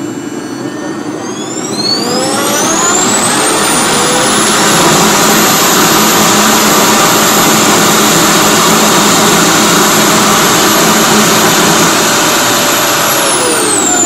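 Hybrid jet engine with an electric-motor-driven 3D-printed compressor and a propane-fired stainless water-bottle combustor, spooling up from a low whine to a high, steady whine over about three seconds, running steadily over the roar of its burning propane, then winding down near the end.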